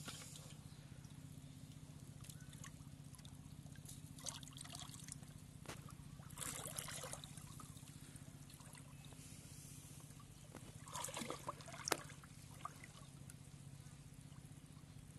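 Hands stirring and splashing shallow muddy water while feeling for fish, in a few short spells about four, six and eleven seconds in, over a steady low hum.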